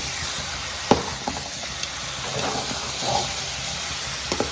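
Chicken pieces cooking in a kadai with spices, sizzling steadily as their water boils off. A sharp knock comes about a second in, with a few smaller knocks near the end.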